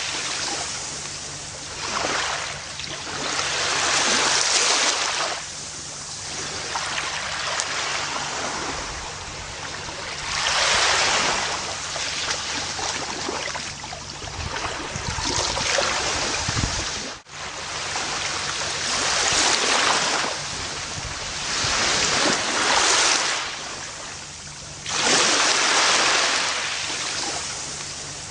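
Gentle ocean waves washing onto a beach, each wave swelling and fading in turn every few seconds. About two-thirds of the way through, the sound cuts out for a split second.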